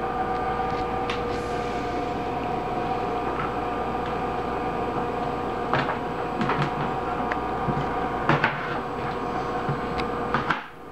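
A steady, even hum under a handful of sharp knocks of a kitchen knife on a plastic cutting board as potato is cut; the hum cuts off near the end.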